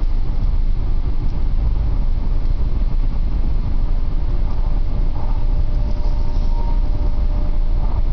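Steady low rumble of a Saab 900 driving at road speed, heard from inside the cabin: engine and tyre noise with no change in pace.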